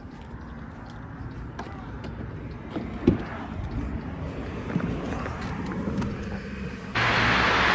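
A car on the move: a steady low rumble with a few light knocks. Near the end, a much louder rushing hiss cuts in suddenly.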